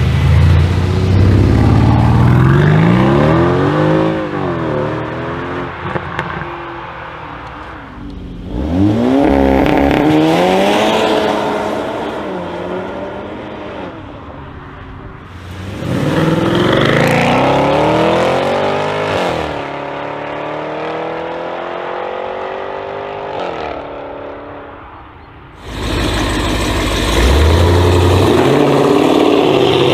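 Four short clips in a row of high-performance SUV engines revving and accelerating hard, cut one after another. Each engine note rises and falls in pitch as it pulls away. They include a Mercedes-AMG GLC 63's V8 and a supercharged Jeep Grand Cherokee Trackhawk V8.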